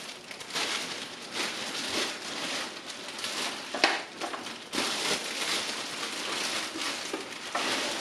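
Packaging wrapper crinkling and rustling in uneven bursts as it is pulled off the embroidery unit, with a sharp click about four seconds in.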